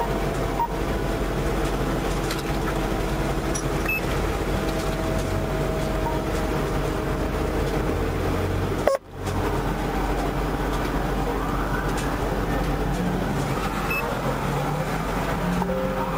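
Steady noise of traffic passing on a multi-lane road, with a sharp click and a momentary dropout about nine seconds in. A faint siren wails, rising and falling, in the last few seconds.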